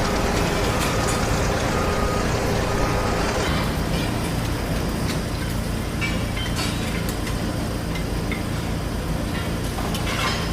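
Heavy construction machinery engine running steadily, with short high beeps about once a second during the first few seconds, like a reversing alarm, and scattered clanks and clicks later.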